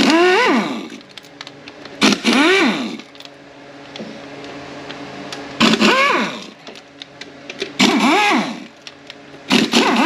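Handheld cordless power tool run in about five short bursts, driving out T30 Torx bolts inside the Ford 4F50N transaxle's bell housing. In each burst the motor's whine rises in pitch and then falls away as it spins up and stops.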